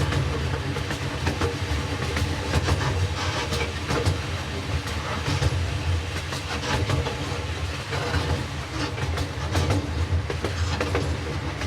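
Miniature passenger train riding along its track, heard from a car: a steady low rumble with frequent sharp clicks as the wheels pass over the rail joints.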